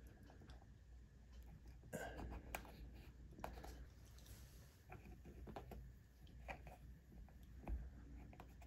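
Faint, scattered taps and clicks as pre-painted pocket-hole plugs are pushed by hand into the pocket holes of a wooden shelf bracket.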